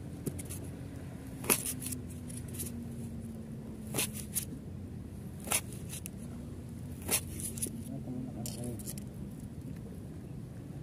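Close handling noise, clothing rustling and a few sharp clicks from hands working, over a low steady hum.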